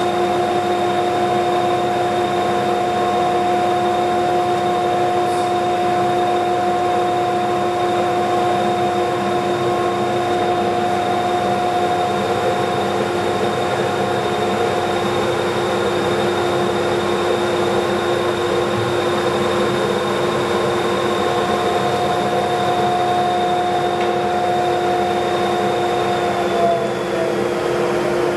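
Mikron curved radius molding machine running with its dust collector, a steady whine of several tones over a rushing noise as trim is fed through. Near the end the whine slides down in pitch as the machine is switched off and spins down.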